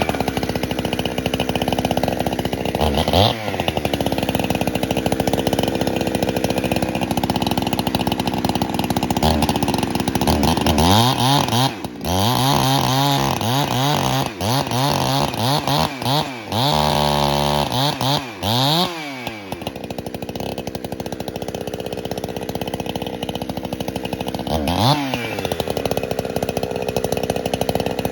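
Chainsaw cutting through a balsam poplar log to take off a 10-foot section. The engine runs at high speed with a brief drop in pitch about three seconds in and again near the end, and its revs rise and fall rapidly through the middle.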